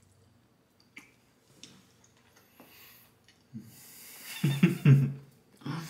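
A man biting into and chewing a taco, with a few faint mouth clicks. About three and a half seconds in comes a loud closed-mouth 'mmm' of enjoyment with breathy exhales through the nose, and it starts again near the end.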